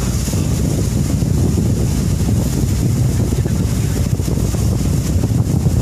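Wooden river taxi boat's engine running steadily under way, a loud low drone, with wind on the microphone.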